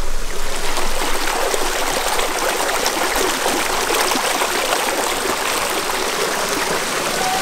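Shallow, rocky river running fast over stones, a steady rushing, splashing babble of water.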